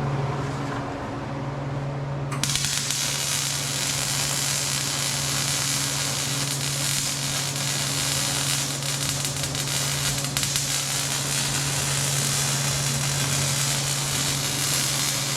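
A steady low mechanical hum. About two seconds in, a loud continuous hiss like rushing air or spray cuts in abruptly and carries on steadily.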